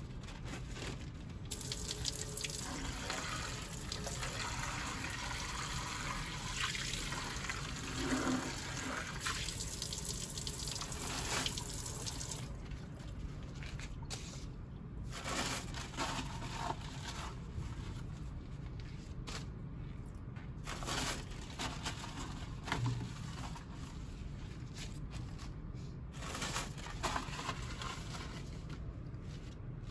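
Faucet water running into a deep porcelain utility sink as a plastic basin is rinsed. The flow runs steadily for about ten seconds, then breaks into short, irregular splashes and knocks.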